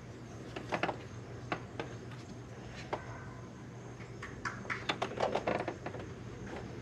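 Rubber hose and engine-bay parts being handled by hand as the hose is routed and pushed onto a fitting: scattered light clicks and knocks, coming thickest about four to six seconds in.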